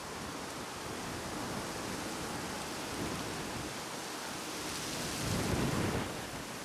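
Wind buffeting the microphone outdoors: a steady rush with low rumbling swells, strongest about five seconds in.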